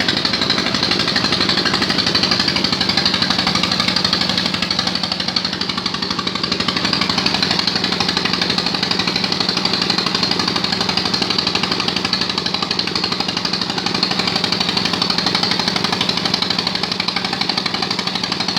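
Deep-well drilling machine running steadily with a fast, even pounding rhythm and a steady hum.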